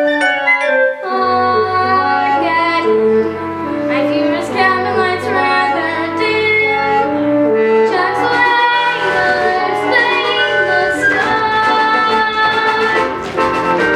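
A musical theatre song: voices singing over instrumental accompaniment, with the fuller low backing coming in about a second in.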